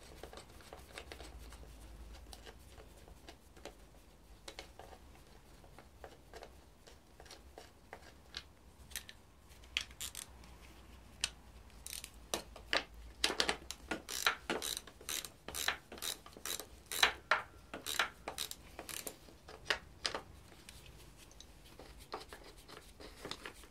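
Ratchet wrench clicking as the power steering reservoir's top bolts are undone: a few scattered clicks at first, then fast runs of sharp clicks through the second half.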